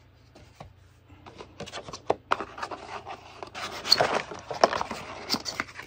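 Cardboard packaging being handled: the box's cardboard insert is scraped and pulled out, with rustling and small knocks. It starts about a second in and is loudest in the middle.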